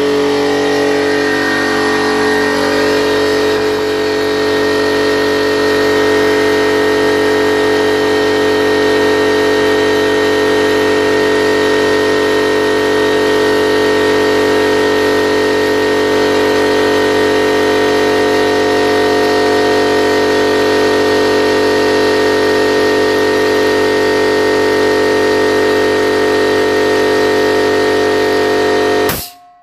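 Electric piston air compressor running under load, pumping up its tank with a steady pitched drone. It is testing the pressure switch's newly adjusted cut-out after a head gasket repair. It cuts out suddenly near the end with a brief burst of noise.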